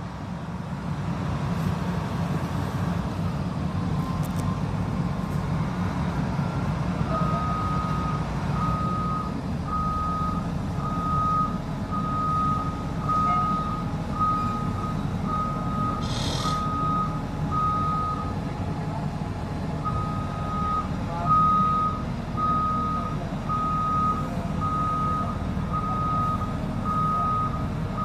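Shantui bulldozer's diesel engine running steadily, with its reversing alarm beeping about once a second from a quarter of the way in, pausing briefly once. A short hiss sounds about two thirds of the way through.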